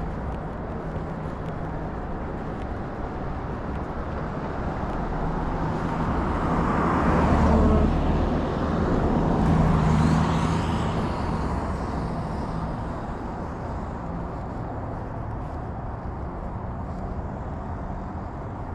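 Street traffic: a passing vehicle grows louder and fades over several seconds, loudest about halfway through, over a steady low hum.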